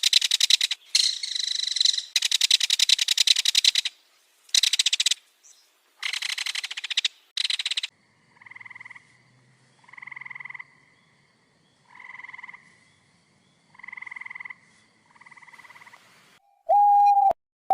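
A run of animal calls. First come loud, rasping, pulsed calls in bouts. Then softer hooting calls repeat about every two seconds, and a loud, clear whistle-like call comes near the end.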